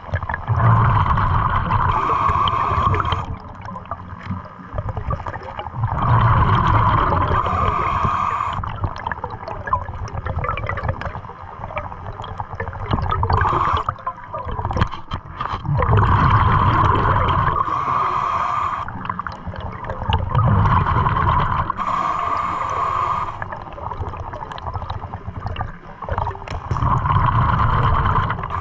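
Scuba diver breathing underwater through a regulator: the inhale hiss and the gurgling rush of exhaled bubbles repeat about every five to six seconds.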